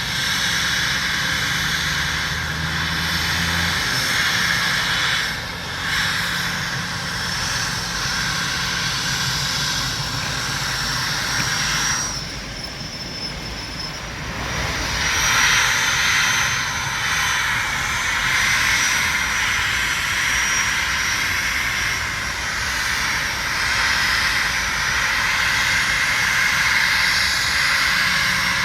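Twin-engine airliner's jet engines running, a steady rush with a high whine that drops back briefly about halfway through.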